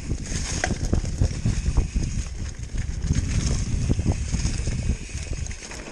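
Downhill mountain bike running over a rough dirt trail: tyres crunching over dirt and rocks, with a dense run of irregular knocks and rattles from the bike. The sound eases off near the end.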